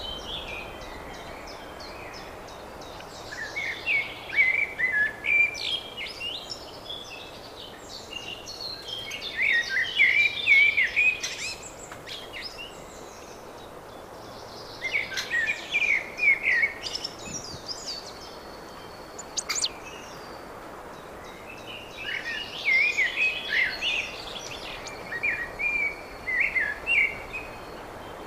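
A songbird singing a spring song in four separate phrases of two to three seconds each, with pauses of a few seconds between them, over a steady background hiss.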